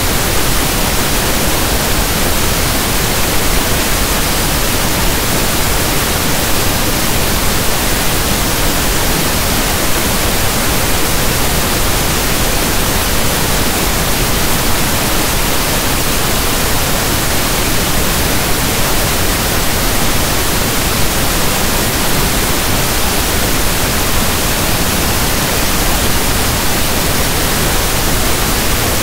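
Steady pink noise: an even hiss like soft static from a radio not tuned to a station.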